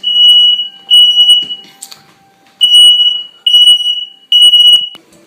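Household smoke alarm sounding its loud, high-pitched beeps in the three-beep pattern: two beeps ending one group, a pause, then a group of three, after which it is silenced. It was set off by smoke from bacon burning in the oven.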